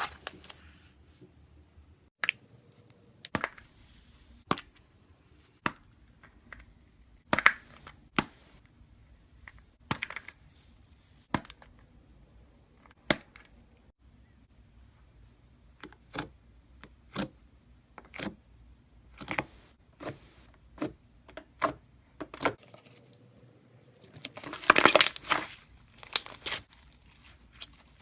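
Slime being squeezed and poked by hand, giving sharp wet pops and clicks about once a second, with a denser run of crackling near the end.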